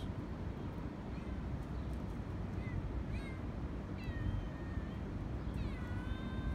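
Stray cat meowing over a steady low rumble: two short meows about three seconds in, then a longer meow, and a drawn-out one near the end.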